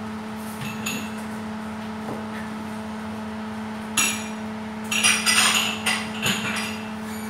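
Kitchen utensils knocking and clinking sharply during food prep at a counter, a few single knocks and a quick run of clinks about five seconds in, over a steady low hum.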